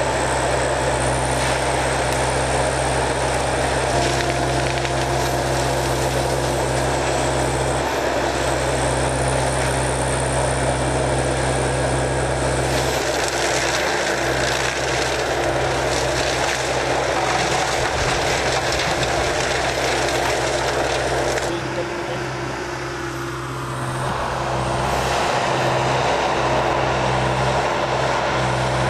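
Walking excavator's diesel engine running hard while its forestry mulcher head shreds brush: a steady machine drone under a dense grinding, chopping noise. About three-quarters of the way through the sound briefly drops and falls in pitch, then picks back up.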